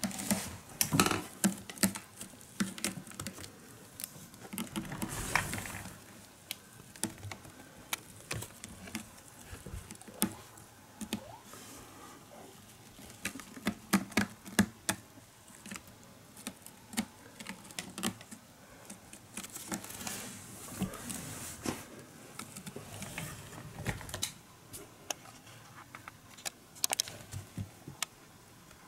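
Kittens scrambling over a carpeted cat tower: irregular quick taps, scratches and soft thumps of paws and claws on the carpet and sisal posts, busier at times.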